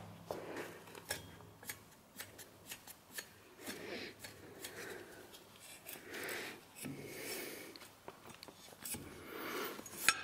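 Light metallic clicks and rubbing as clutch and gearbox parts are handled, with scattered sharp ticks and a few soft scraping swells.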